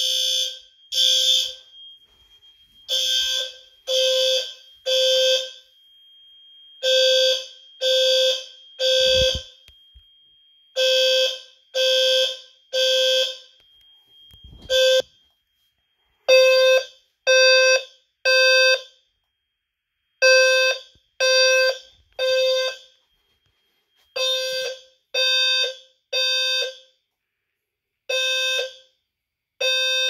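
Fire alarm horn-strobes sounding the temporal-three evacuation pattern: three short horn blasts about a second apart, a pause, then three more, over and over, set off by a smoke detector test. A thin steady high tone runs under the blasts and stops about halfway through.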